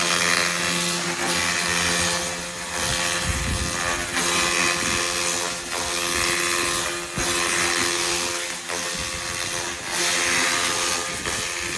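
Handheld fiber laser welding and cleaning machine working on steel: a steady hissing, crackling noise over a low machine hum, swelling and dipping briefly every second or so.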